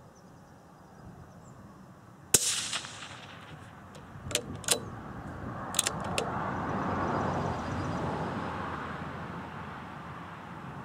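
A single suppressed shot from a CZ .17 HMR bolt-action rimfire rifle, a sharp crack with a short ring-out, followed a couple of seconds later by four metallic clicks as the bolt is worked. A broad rushing noise then swells and fades over several seconds.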